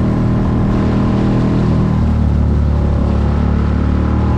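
6 hp outboard motor running steadily at full throttle, pushing the micro skiff along at cruising speed while the new motor is being broken in; its note shifts slightly about two seconds in.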